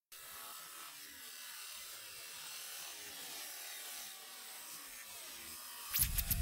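Film sound design: a steady electronic hiss with faint falling tones under it. About six seconds in, a much louder deep rumble begins with a run of sharp digital clicks.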